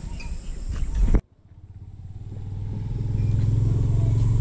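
Low rumble and knocks that cut off suddenly about a second in. Then a steady low engine drone with a fine regular pulse fades up over a couple of seconds and holds.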